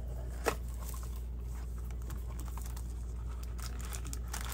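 Cardboard booster box and its card packs being handled: a sharp tap about half a second in, then light rustling and clicks, over a steady low hum.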